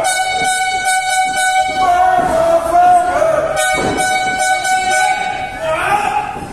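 A horn held in one long, loud tone that wavers slightly in pitch, with a thud a little under four seconds in.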